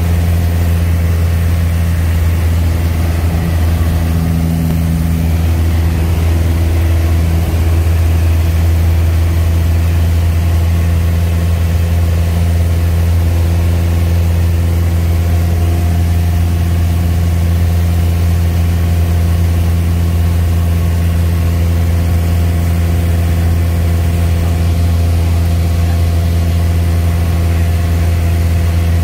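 Piper Cherokee Warrior's Lycoming O-320 four-cylinder engine and propeller droning steadily in flight, heard inside the cabin as a loud, even low hum with overtones.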